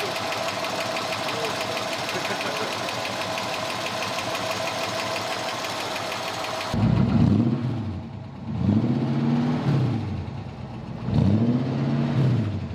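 1966 Ford Mustang V8 idling with a fast, even mechanical clatter heard at the open engine bay. About seven seconds in, it is heard at the twin tailpipes being revved three times, each rev rising and falling in pitch.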